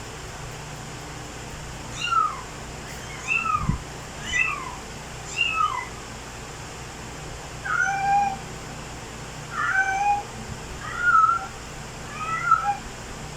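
A domestic cat meowing repeatedly, about eight meows: the first four short and falling in pitch, the rest longer, rising and then falling.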